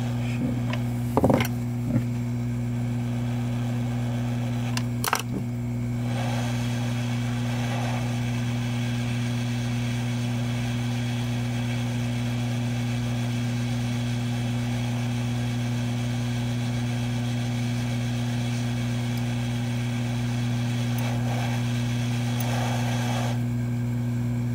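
Hot air rework station blowing on the PMIC to melt its solder so the chip can be lifted: an even air hiss over a steady electrical hum. The hiss sets in about six seconds in and cuts off sharply near the end, after a few light tool clicks early on.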